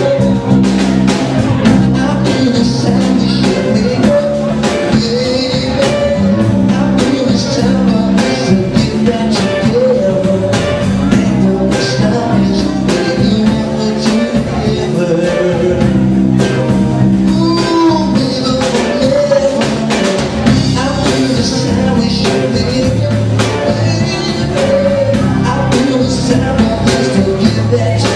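Live band playing loud, amplified music with a steady drum beat: keyboard, guitar, saxophone and drum kit, with a voice singing at the keyboard microphone.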